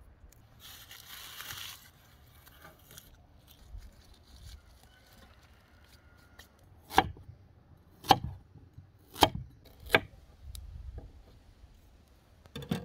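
Kitchen knife chopping carrots on a wooden cutting board: four sharp chops about a second apart in the second half. A brief rustling hiss about a second in.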